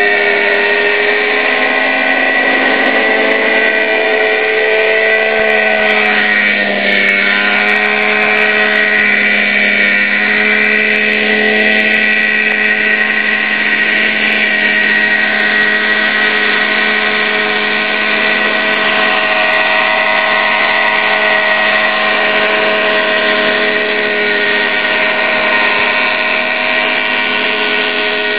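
Tiger 50 radio-controlled model helicopter hovering. Its engine and rotor give a steady high whine, with a brief dip and recovery in pitch about six to seven seconds in.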